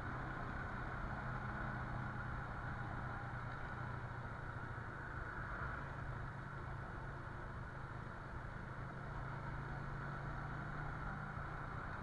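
Motorcycle engine running at a steady cruising speed, heard from on the bike, with road and wind noise.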